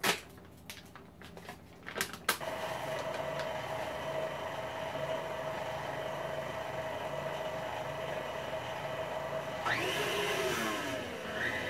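A few crinkles and clicks of a plastic powdered-sugar bag, then about two seconds in a KitchenAid stand mixer with its wire whisk starts up and runs steadily, beating butter and powdered sugar into frosting. Near the end its sound shifts briefly in pitch and settles on a higher tone.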